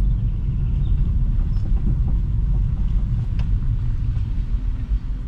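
Steady low rumble of a car's engine and tyres heard from inside the moving car, with a couple of faint clicks.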